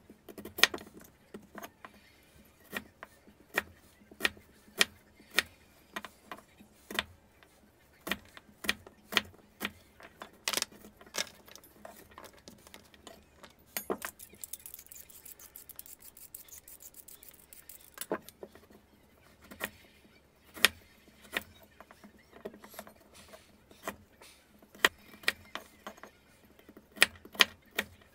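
Kitchen knife chopping daikon radish and carrot on a wooden cutting board: irregular sharp knocks of the blade on the board. About halfway through, a few seconds of fast scraping as a vegetable peeler takes the skin off a carrot.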